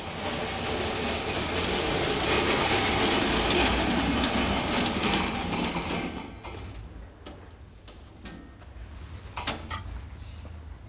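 Wheeled metal trolley loaded with stainless-steel pans rattling and clattering as it is pushed along a hard floor. It stops about six seconds in, followed by a few metallic clinks near the end.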